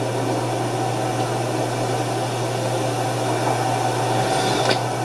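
Steady low electrical hum with a constant hiss, and one brief click near the end.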